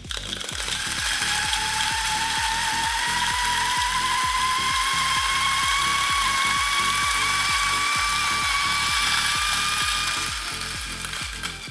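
Timemore Sculptor 078S electric coffee grinder with 78 mm burrs, started cold and grinding an 18 g espresso dose. Its motor whine rises slowly in pitch as it gets up to speed over a steady grinding rattle. The grinding dies down about ten and a half seconds in.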